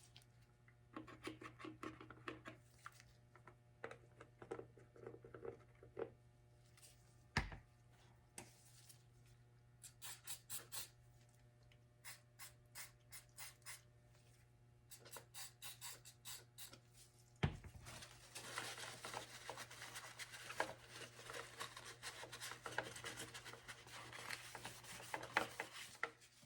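Faint workbench handling of plastic armor parts: scattered clicks and short runs of quick ticks, two sharp knocks, then a long stretch of scraping or cutting over the last third, over a steady low electrical hum.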